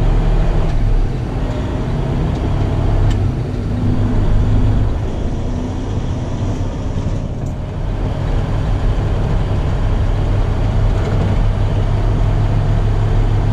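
Diesel engine of a Freightliner Cascadia semi-truck running with a steady low drone.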